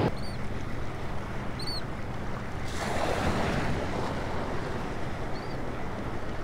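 Small waves washing in shallow surf, with wind on the microphone; the wash swells up about three seconds in.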